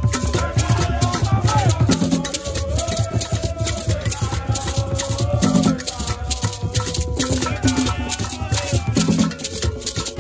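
Music with a fast, steady shaker rhythm over a bass pulse and a held, gliding melody line.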